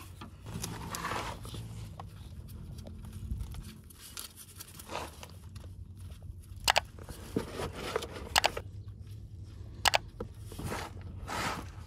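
Hand-tool work on a car's differential plug: scraping and rustling, with several sharp metallic clicks in the second half as the plug is worked loose.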